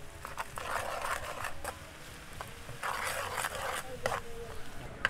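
Metal spatula scraping and stirring garlic, onion and chili in melted butter in a metal wok, in two spells of a second or so each.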